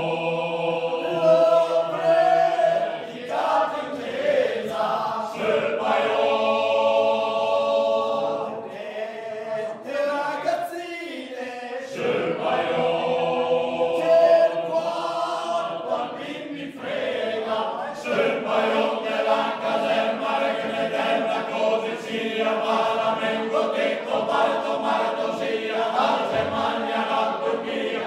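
A small men's choir singing a cappella: several voices hold long notes together in phrases, with short breaks between phrases.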